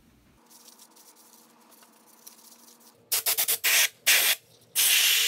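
Aerosol can of DeoxIT contact cleaner spraying in hissing bursts, from a quick run of short squirts about three seconds in to three longer sprays, as the amplifier's front-panel potentiometers and contacts are flushed clean.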